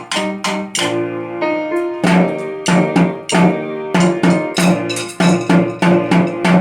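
Music played on a keyboard instrument: struck notes that ring and fade, a few each second, with one low note repeated over and over.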